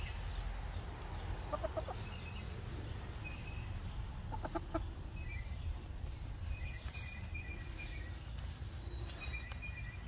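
A backyard hen clucking briefly, two short calls about a second and a half and four and a half seconds in, over a low steady background rumble, with a few faint thin high chirps near the end.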